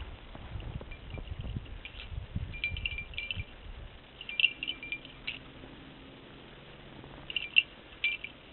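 A dog digging and nosing through snow while hunting for small animals beneath it: soft crunching and thudding of snow through the first half. Short bursts of high tinkling come and go throughout, loudest about halfway through and again near the end.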